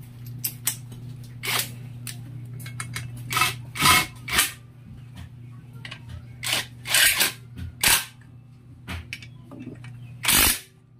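Metal tools and parts clinking and clacking at irregular intervals, with several louder clacks, over a steady low hum.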